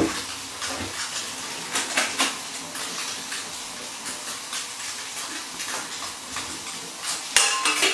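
Hot water from just-boiled noodles draining through a colander into a stainless steel sink, with the colander lifted, shaken and knocking against the sink and pans. A louder burst of noise comes near the end.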